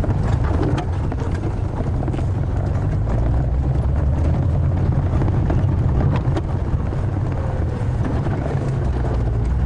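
Game-drive vehicle's engine running steadily while driving along a dirt road, with scattered knocks and rattles.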